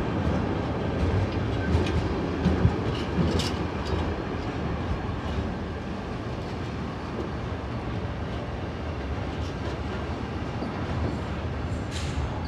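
A train passing along the track: a steady rumble with wheels clattering over the rail joints, busiest in the first few seconds.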